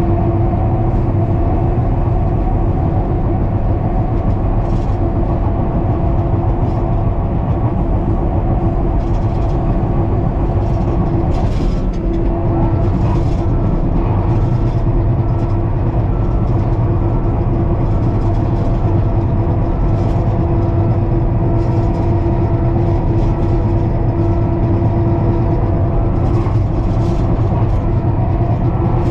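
John Deere 550K crawler dozer at work: its diesel engine runs steadily at a constant pitch, with light, irregular clicking over it.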